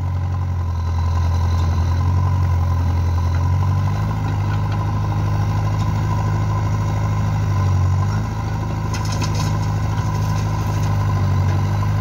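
JCB backhoe loader's diesel engine running steadily while the backhoe arm digs and swings a load. The note shifts slightly about four and eight seconds in.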